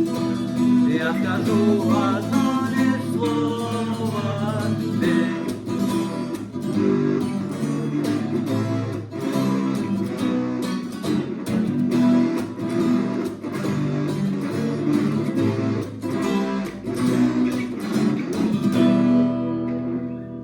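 Two guitars playing the instrumental ending of a rock song: rhythm chords strummed under a lead guitar melody, dying away in the last second.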